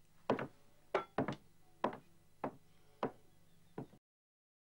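A series of about eight sharp knocks, roughly one every half-second to second and slightly uneven in spacing. The sound cuts off suddenly about four seconds in.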